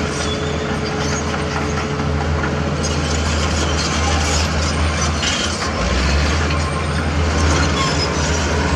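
Diesel engine of heavy earthmoving machinery running under load, a steady low hum with a rattly, scraping wash over it. About six seconds in the engine note drops lower and gets louder.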